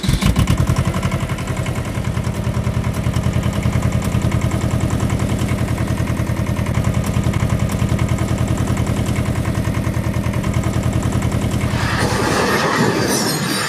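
Old Ford farm tractor's engine catches and runs with a steady, rapid chugging pulse. Near the end the engine sound fades under a rough, crunching noise.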